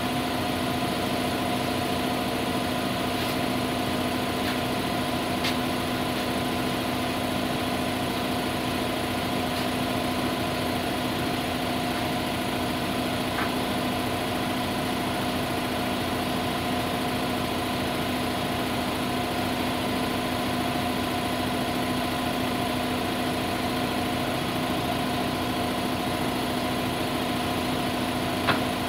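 Steady, unchanging hum of an engine or motor running at idle, with a couple of light clicks near the end.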